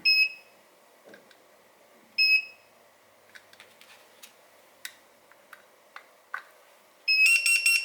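Retekess T115 pager beeping: a short beep at the start and another about two seconds in, soft clicks of its keys being pressed, then a rapid run of beeps near the end as the pager answers to its new ID.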